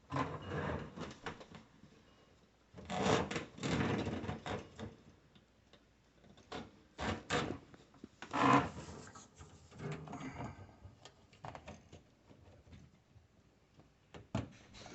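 Dishwasher parts being handled: intermittent rubbing, scraping and clattering, in several short bursts with quiet gaps between them.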